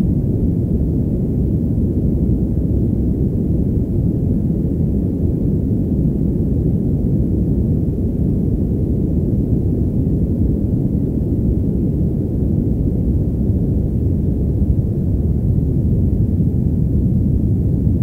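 Padded white noise: steady white noise muffled so that the high hiss is gone, leaving a deep, even rush that does not change.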